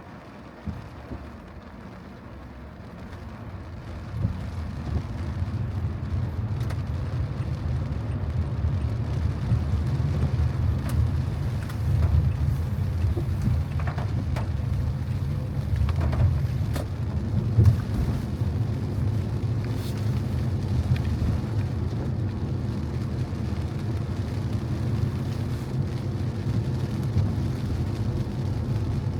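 Car driving on wet streets: a low road and engine rumble that swells over the first several seconds as the car picks up speed, then holds steady, with a few faint knocks.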